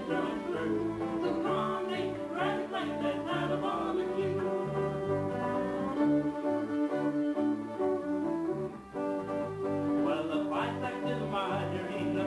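Live folk band playing an instrumental passage: two fiddles carry the tune in long bowed notes over electric and acoustic guitars and a steady pulsing bass.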